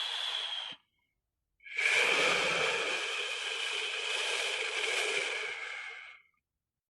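Snoring sound effect: a sleeper's hissing breath with a faint whistle ends about a second in. After a short silence comes a longer whistling, hissing breath of about four and a half seconds that fades out.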